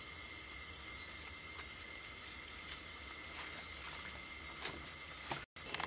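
Steady night insect chorus: a high shrill hiss with a constant tone and a pulsing trill, with a few faint clicks and rustles. It cuts off abruptly near the end.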